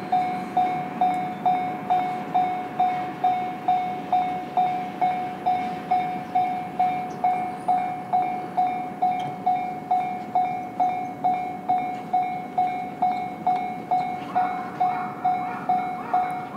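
Japanese railway crossing alarm ringing, a single electronic bell tone struck a little over twice a second in a steady rhythm, warning that a train is coming. A low rumble runs underneath, and a higher scraping sound joins in near the end.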